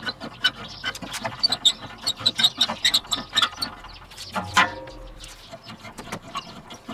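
A long aluminium spirit level being shifted and set down on a steel plancha plate: scattered light clicks and knocks, with short high squeaks among them.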